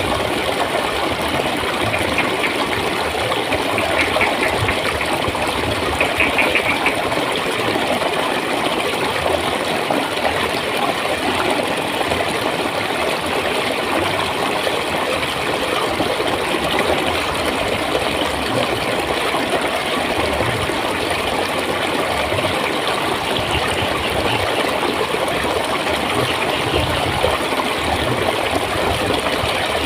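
Water flowing and gurgling steadily, with a few brief, higher bubbling sounds in the first few seconds.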